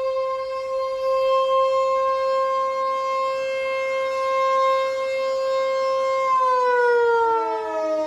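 ASC T-121 outdoor warning siren sounding its steady alert tone, then about six seconds in its pitch starts to fall as it begins winding down. The siren is malfunctioning: it has held its steady alert signal for about ten minutes instead of the usual one minute.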